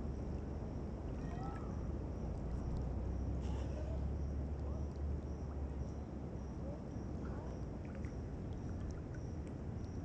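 Water sloshing and lapping around a swimmer moving slowly through a shallow creek, over a steady low rumble of water and wind on the camera microphone at the waterline. Faint short chirps come and go, and a faint high chirp repeats about twice a second.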